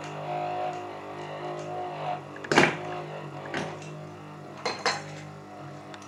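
Steady buzzing hum of a 12 V battery charger's transformer fed 240 V mains through a lighting dimmer switch, the buzz caused by DC voltage the dimmer puts into the AC supply. A loud metallic clatter about two and a half seconds in, then lighter clinks about a second and two seconds later, as a 40 W lamp is put in.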